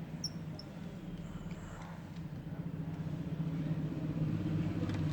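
A steady low hum, like a motor or machine running, with a few faint small clicks near the start.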